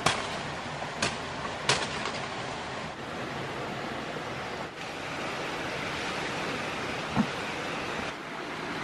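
Steady rush of a fast-flowing forest stream. In the first two seconds, three sharp chops of a machete striking brush.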